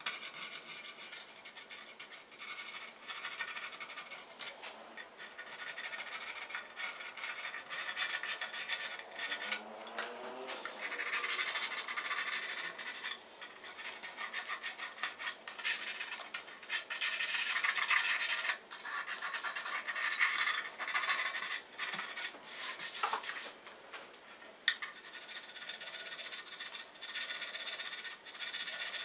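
Small files and sandpaper rasping back and forth by hand over the wooden edges of a guitar body's f-holes, chamfering and rounding them. The strokes are short and irregular, heavier in two spells in the middle.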